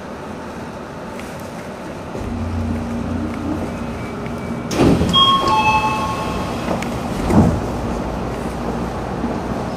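Odakyu 3000 series electric commuter train running, heard from the front of the train; its running noise grows louder and deeper about two seconds in. Around the middle come two loud clattering knocks, the first followed by a few brief high ringing tones.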